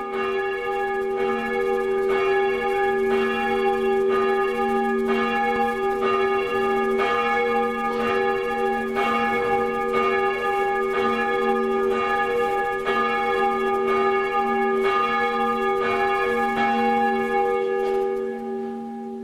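Church bell tolling, struck about once a second, with each stroke ringing on into the next. The ringing fades near the end.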